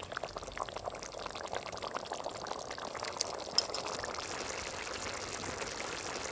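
Thick tomato-onion masala bubbling in a metal pot, reducing down, with a steady wet simmering hiss and popping bubbles. A ladle clicks and scrapes in the sauce over the first few seconds.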